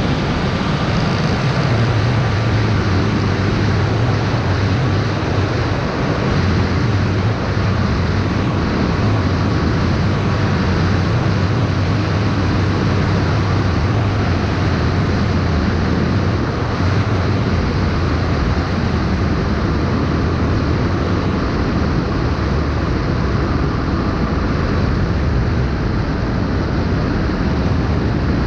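FPV racing drone in flight, heard through its onboard camera: a steady rushing of wind and propeller noise with a faint motor whine.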